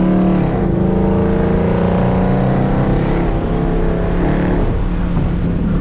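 Exhaust of a 2014 Mustang GT's 5.0 V8, running with its muffler and resonator deleted, while the car is driven. The engine note holds steady and shifts pitch about half a second in and again near the end.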